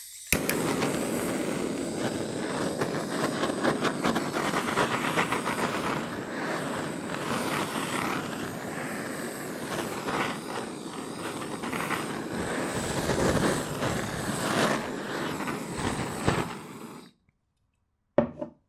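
Handheld kitchen blowtorch flame playing over the bottom of an upturned metal tart pan, heating it so the caramel lets go for unmoulding. The flame makes a steady, crackling hiss that lights at the start and cuts off sharply a little before the end. A brief knock follows.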